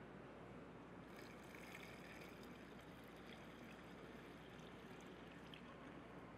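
Water poured from a glass pitcher into a slow cooker crock of beans and spices, a faint steady pouring that starts about a second in.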